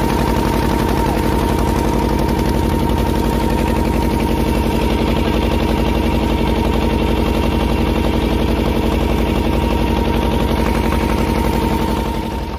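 Engine of a small wooden passenger boat running steadily under way, a loud fast even beat with a steady whine above it, easing off slightly near the end.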